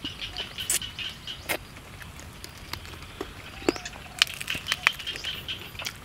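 Close-miked eating sounds: crisp lettuce leaves crinkling and tearing, with sharp clicks and smacks from the mouth and fingers.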